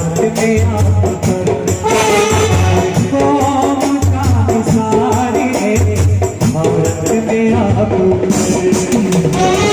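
Indian procession band playing a qawwali tune without vocals. A melody runs over a steady drum beat, a repeating bass line and jingling tambourine-like percussion.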